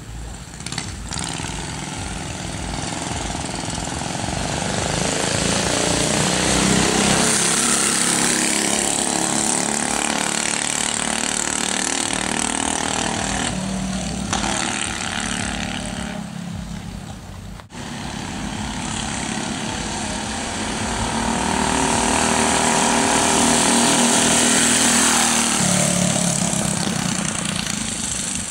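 Small gasoline engine of a homemade motorized bicycle running. It grows louder and higher twice, with a brief drop near the middle.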